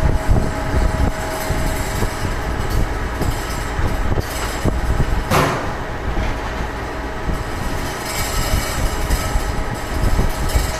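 CNC roll-up door spring machine running: a steady mechanical rattle and clatter, with one short, louder rasp about five and a half seconds in.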